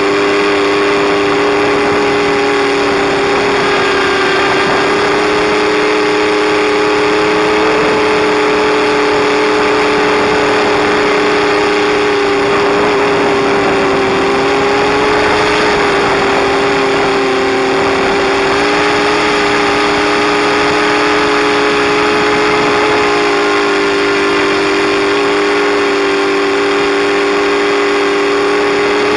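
Electric motors and propellers of an FPV quadcopter whining steadily, heard up close from onboard. The pitch rises and dips a little as the throttle changes.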